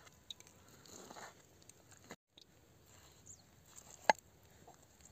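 Chef's knife slicing raw meat on a wooden cutting board: soft scattered cutting sounds, with one sharp knock of the blade on the board about four seconds in.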